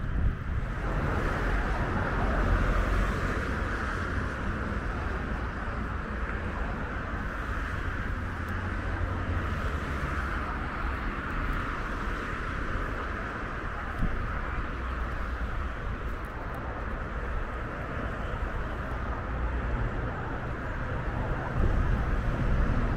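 Wind buffeting the microphone with an uneven low rumble over a steady outdoor hiss, with one short knock about two-thirds of the way through.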